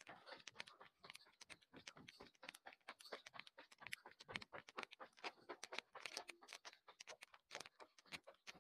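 Faint, quick footsteps of people running over hard indoor floors: a rapid, uneven patter of taps, several a second.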